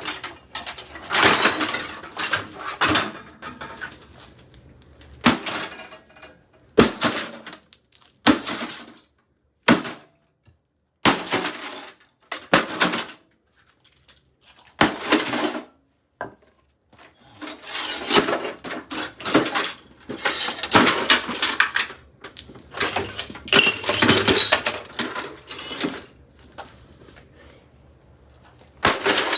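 Repeated sledgehammer blows smashing a Hamilton Beach microwave oven, its casing and parts breaking and clattering. The strikes come in clusters with brief pauses.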